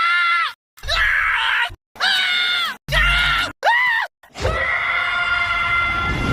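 Scrat, the cartoon sabre-toothed squirrel, screaming: five short squealing screams cut one after another with brief silent gaps, each dropping in pitch at its end, then one long held scream starting about two-thirds in.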